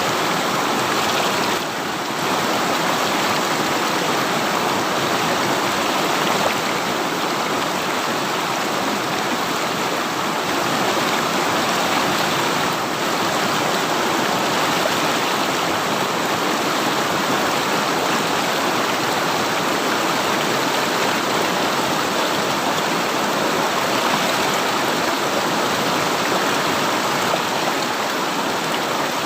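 River water running steadily: a continuous rushing and babbling flow.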